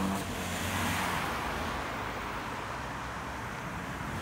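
A car passing on the road, its tyre and engine noise fading over the first couple of seconds.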